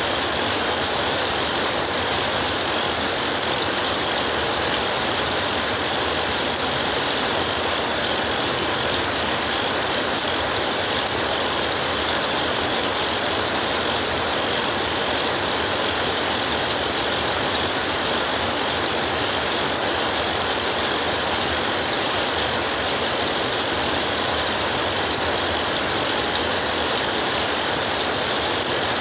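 Heavy rain falling steadily, a dense even hiss of many drops with no rise or fall.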